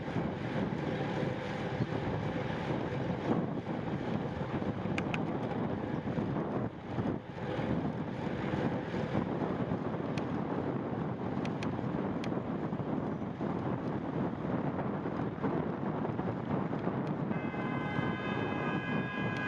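Wind rushing over the microphone of a camera on a moving bicycle, with road noise. About two seconds before the end, a car horn behind the bike starts sounding and holds steadily.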